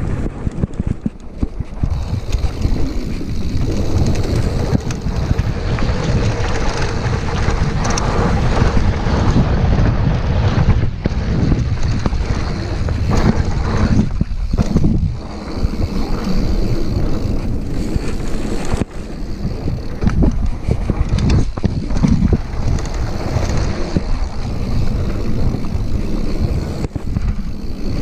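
Wind noise buffeting the camera's microphone as a mountain bike descends a dirt trail at speed, with tyre noise on the dirt and short knocks and rattles from the bike over bumps.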